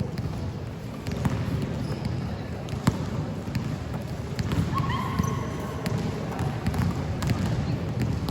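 Basketballs bouncing on a court in irregular knocks, over a steady background of voices and hall noise, with a few short squeaks about five seconds in.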